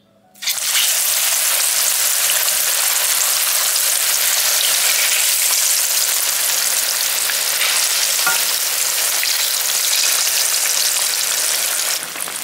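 Sliced plantains frying in hot oil in a skillet: the oil starts sizzling suddenly as the slices go in, then keeps up a steady hiss with scattered small crackles. It eases a little near the end.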